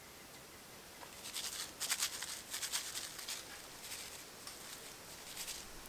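Irregular crisp rustling and crackling, mostly high-pitched, starting about a second in, busiest over the next three seconds and thinning out after that.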